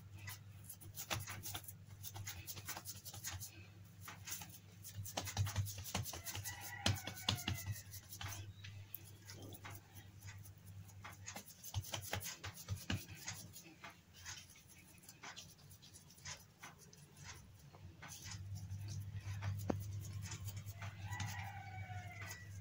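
Hands patting and pressing soft cookie dough on a silicone baking mat, a run of soft pats and taps over a low steady hum. Twice, about seven seconds in and again near the end, a short animal call falls in pitch.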